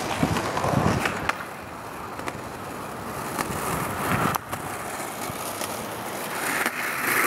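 Skateboard wheels rolling over rough asphalt, with a few sharp knocks from the board, getting louder near the end as the board comes closer.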